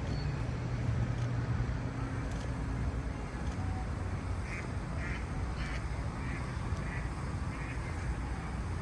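A duck quacking, a run of about seven short quacks at roughly two a second in the second half, over a steady low rumble of city traffic.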